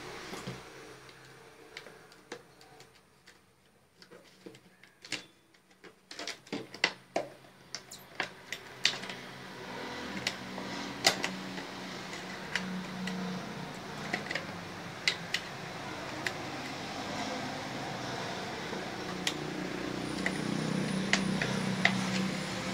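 Thin clear plastic bottle being cut by hand with a small blade: irregular crackles and sharp clicks of the plastic, coming thickest about six to nine seconds in, then more scattered. A steady background hum grows louder toward the end.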